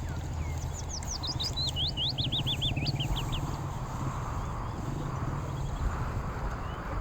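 A songbird singing one phrase of quick, sweeping chirps, about five or six a second, starting about half a second in and ending after about three seconds, over a steady low rumble.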